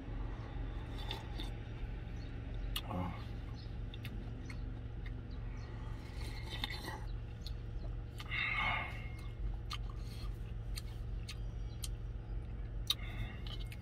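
A person sipping and slurping hot broth from a cup noodle, with swallowing and small wet mouth clicks; the longest slurp comes about two-thirds of the way through. A steady low hum runs underneath.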